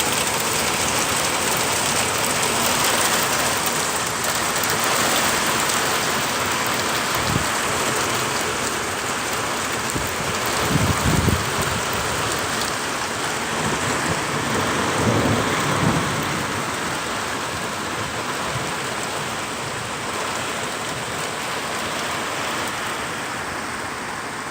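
Heavy rain and hail pouring down steadily in a severe thunderstorm, with thunder rumbling three times in the middle. The downpour eases slightly near the end.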